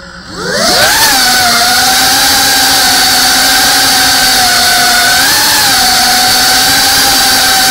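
FPV quadcopter's brushless motors and propellers spinning up from idle with a sharply rising whine as it takes off, then holding a steady high whine. About five seconds in the pitch briefly rises with a throttle burst.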